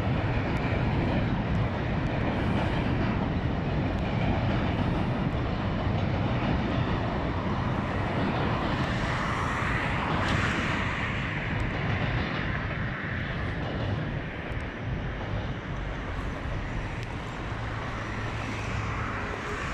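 Mixed freight train rolling across a steel truss bridge: a steady rumble of wheels and wagons that eases off slightly toward the end.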